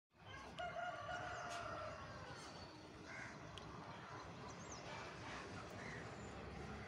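A bird's long, drawn-out call about half a second in, then a few short high chirps over a steady, faint outdoor background hum.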